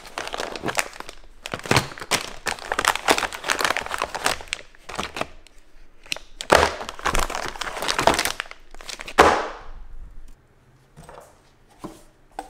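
Clear plastic bags crinkling and rustling as bagged cables and adapters are handled in a hard plastic tool case, with sharp clicks and knocks mixed in. The handling stops about ten seconds in, leaving only a few faint clicks.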